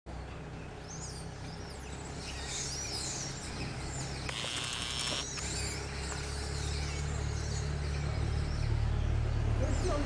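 Wild birds calling in dry forest, with thin high whistles and glides scattered throughout, and a buzzing trill lasting about a second roughly four seconds in. Underneath, a low steady engine hum, typical of an idling vehicle, grows louder in the second half.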